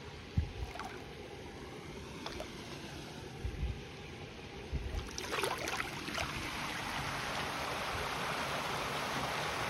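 Wooden canoe paddle dipping and splashing in pond water, with a few low thumps. From about two-thirds in, the steady rush of a small stream running over rocks grows louder as the canoe comes up to it.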